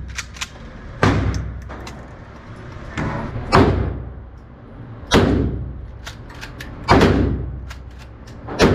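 Slow series of single gunshots in an indoor range, about one every two seconds, each followed by a long echo off the range walls.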